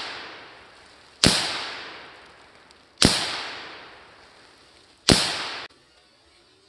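AR-15 rifle firing three single shots about two seconds apart, each sharp crack followed by a long echo that fades away. It opens on the fading echo of a shot fired just before, and the last shot's echo is cut off short.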